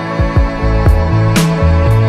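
Background music: a bass line moving in steps under held chords, with a sharp percussive hit about one and a half seconds in.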